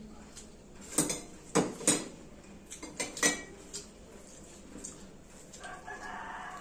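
Hand mixing rice on a stainless steel plate, with five sharp metallic clinks against the plate in the first three and a half seconds.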